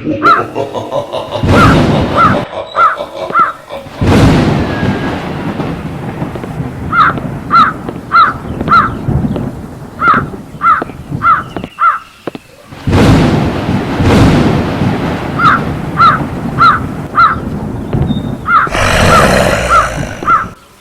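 Crow cawing in runs of four or five caws, about two a second, over repeated thunder: sudden cracks that roll off into long low rumbles. Near the end comes a hissing, rushing swell.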